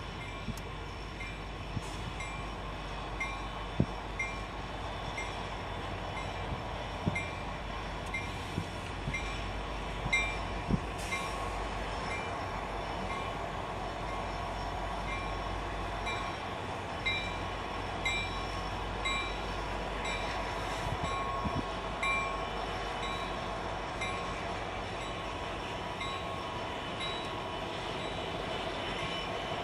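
Freight train of autorack cars rolling past with a steady rumble. The wheels click regularly, roughly once a second, over rail joints and the diamond crossing, with several sharper clanks.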